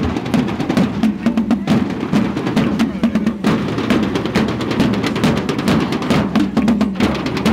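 Drum band playing music with a fast, steady beat, many drum strokes a second.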